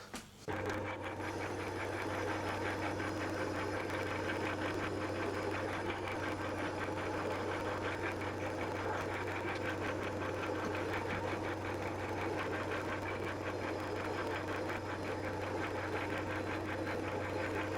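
Lathe starting up about half a second in and running steadily, turning a between-centres boring bar for the final finishing cut in a tool-grinder casting's column bore. It is a steady hum with a fast, even ticking.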